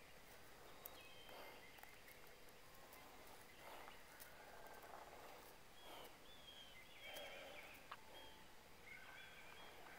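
Near silence: quiet outdoor ambience with faint, short bird chirps now and then.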